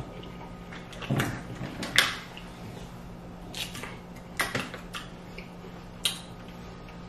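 Snow crab leg shells being cracked and pulled apart during eating: a handful of sharp cracks and clicks at irregular intervals, the loudest about two seconds in, over a low steady hum.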